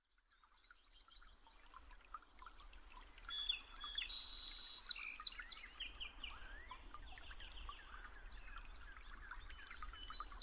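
Several birds chirping and trilling in a quick, overlapping stream of short calls, over a faint low hum. It fades in about half a second in.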